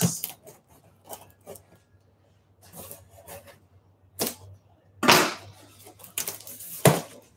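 A cardboard box being cut open with a knife and its flaps pulled open: short, irregular scrapes and rustles of cardboard, with the loudest scuffs about five seconds in and again near the end.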